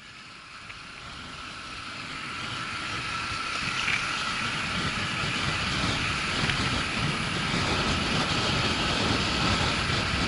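A motorcycle riding at road speed: wind rushing over the bike-mounted camera with the engine running beneath it, growing louder over the first four seconds and then steady.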